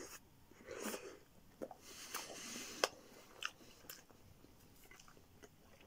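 Mouth sounds of a person chewing a bite of pepperoni pizza: soft chewing with scattered sharp clicks, busier in the first few seconds and quieter toward the end.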